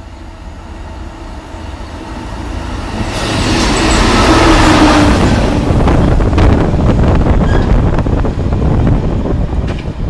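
Diesel track tamping machine passing at speed: its engine and wheel noise rise to a peak about four seconds in as it goes by, then its wheels clatter over rail joints and points as it moves away.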